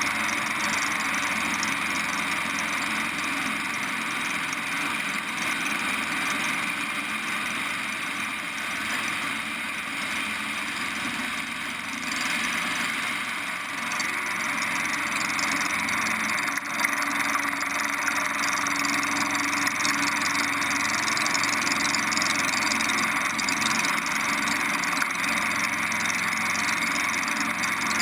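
Preceptor Ultra Pup light aircraft's piston engine and propeller running steadily in flight, with the rush of airflow past the outside of the plane.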